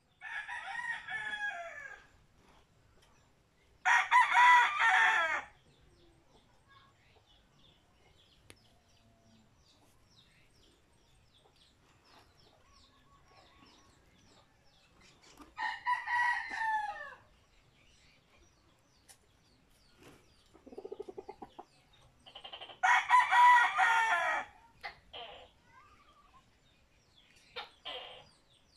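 Four loud, long animal calls, each lasting about one and a half seconds: one at the start, one about 4 s in, one about 16 s in and one about 23 s in. Fainter, shorter calls come in between.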